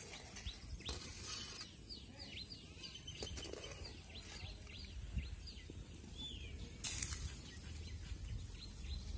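A bird calling outside in a rapid run of short, falling chirps over a low steady background rumble. A brief noisy rush, the loudest thing here, cuts in about seven seconds in.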